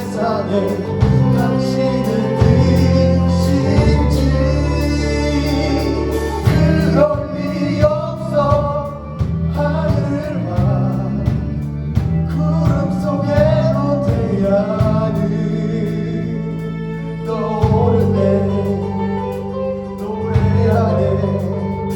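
A musical-theatre song: voices singing over instrumental backing, with long held bass notes that change every second or two.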